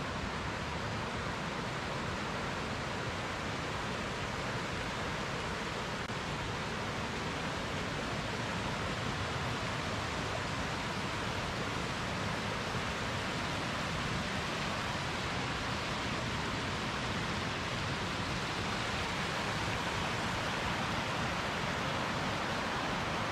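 Mountain creek rushing and splashing over rocks: a steady, even rush of water.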